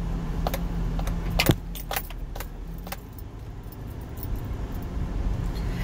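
Inside a Subaru driving slowly on a rough sandy dirt road: low steady rumble of the engine and tyres, with irregular clinks and rattles in the cabin as the car bounces, the sharpest about a second and a half in.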